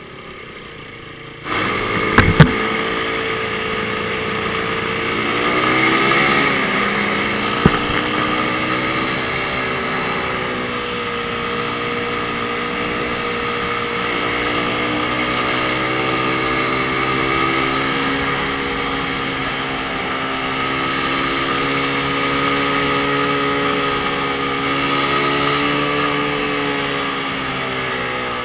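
Suzuki Raider R150 motorcycle engine running under way in traffic, its pitch rising and falling gently as the throttle opens and closes. It starts suddenly about a second and a half in, and there are a few sharp clicks soon after and again about eight seconds in.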